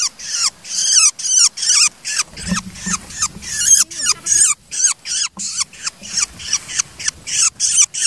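Young hand-reared long-tailed shrike calling: a rapid series of shrill, harsh calls, each sliding down in pitch, about three a second.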